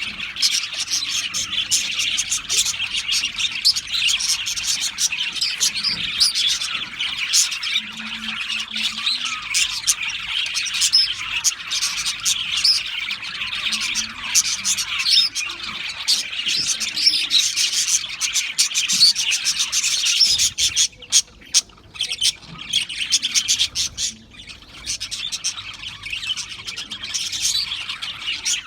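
Budgerigars chirping and warbling in dense, continuous, overlapping chatter with occasional squawks, briefly thinning out about three-quarters of the way through.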